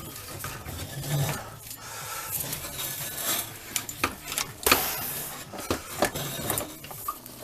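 Handlebars of a vintage pushbike being twisted and worked loose after a squirt of penetrating spray: metal rubbing and scraping, with scattered knocks and clicks.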